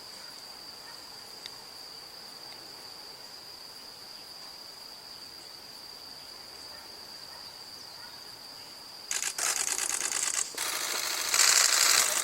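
Nikon 1 V2 camera's shutter firing in rapid continuous bursts from about nine seconds in, loudest near the end. Before that, only a thin steady high tone over faint hiss.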